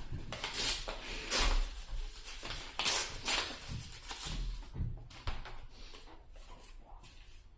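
Yu-Gi-Oh trading cards and their foil pack being handled: a run of short rustles and flicks, most of them in the first five seconds, growing sparser and fainter toward the end.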